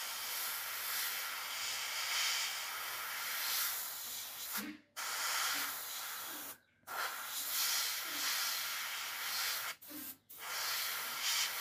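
Airbrush hissing as it sprays undiluted green paint, the air cutting off briefly three times as the trigger is let go, about 5, 7 and 10 seconds in.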